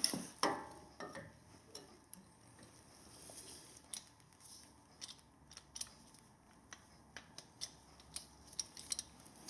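Light metallic clicks and clinks, scattered and irregular, with a sharper knock just after the start. This is a steel caliper piston-spreader tool being handled and fitted against a four-piston brake caliper.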